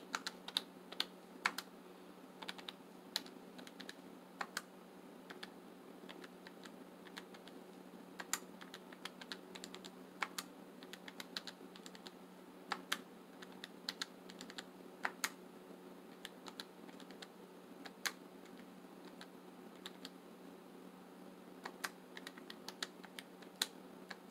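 Keys of a desktop calculator being pressed in irregular runs of light clicks, as a column of bill amounts is added up.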